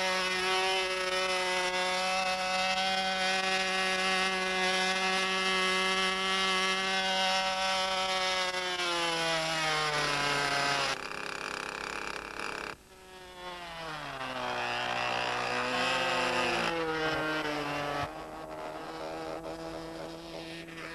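Small piston engine of a radio-controlled model plane running at high, steady revs and then throttling back. After a break it revs up and down, and near the end it is heard more faintly.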